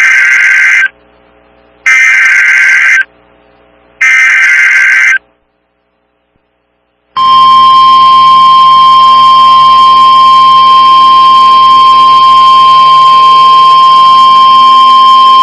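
NOAA Weather Radio emergency alert: three short bursts of warbling SAME digital data header, a pause, then the steady, loud warning alarm tone held for about nine seconds before it cuts off. The tone announces a new tornado warning.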